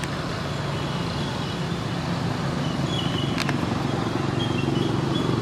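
A motor vehicle's engine running steadily, slowly growing a little louder. A single sharp click about three and a half seconds in.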